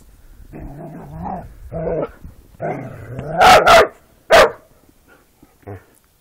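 Border collies growling in rough play, then barking three times, loud and sharp, about three and a half seconds in, with a fainter yip near the end.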